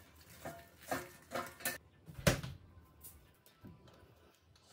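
Green onions being handled and stood upright in a plastic container: a string of short knocks and rustles, the loudest a thump about two seconds in.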